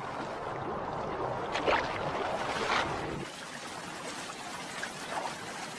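Rushing river water, a steady wash that turns quieter and thinner about three seconds in.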